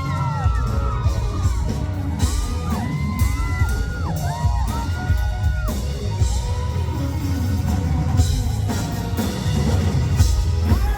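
A live pop-rock band and singer performing at full volume, with a heavy, steady beat. High voices glide and whoop over the music throughout, from audience members screaming.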